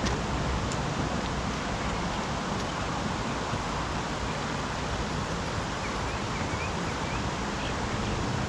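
Steady rushing noise of wind on the microphone outdoors, with a few faint short high chirps in the second half.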